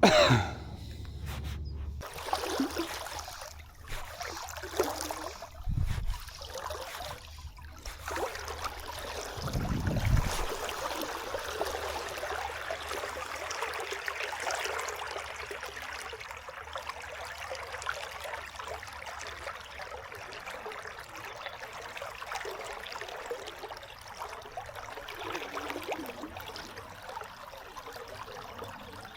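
River water flowing steadily, with two short low thumps about six and ten seconds in.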